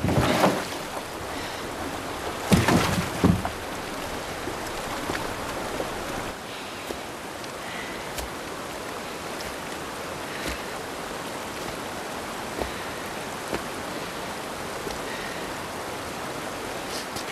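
River rapids rushing steadily over rocks, with a few knocks about two and a half to three and a half seconds in.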